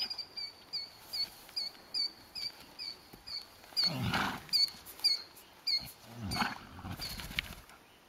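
A horse snorting twice as it gets up after rolling in dirt: a long snort about four seconds in and another after six seconds, the contented blowing of a horse after a roll. Throughout, a high chirp repeats evenly about two or three times a second.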